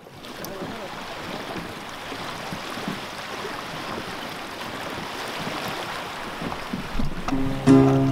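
Sea water lapping and rippling, a steady rushing wash that fades in at the start. About seven seconds in, acoustic guitar music comes in and quickly grows louder.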